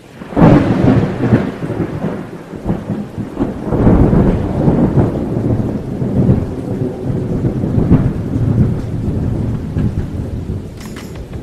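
Thunderstorm sound effect: steady rain with rolling thunder that swells several times, loudest just after it starts.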